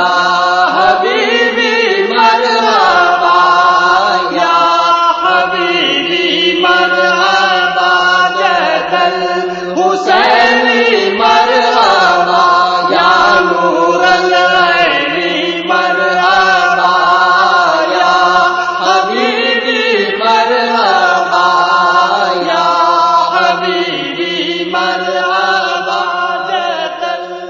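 Naat recitation: a voice chants a melismatic vocal line over a steady low drone with no instruments. It fades out near the end.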